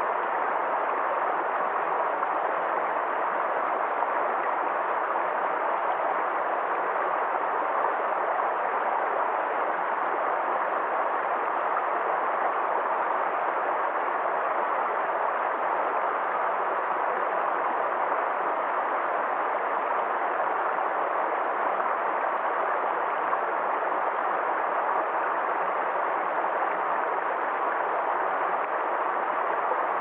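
Shallow rocky stream rushing over boulders and small riffles: a steady, unbroken rush of water.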